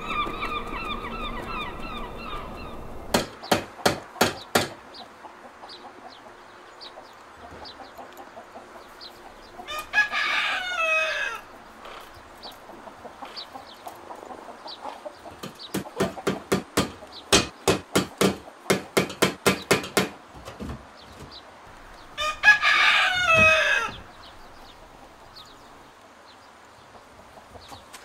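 Geese honking for the first few seconds, then a rooster crowing twice, about twelve seconds apart, each crow falling in pitch at the end. Between the crows come runs of sharp knocks, about four a second.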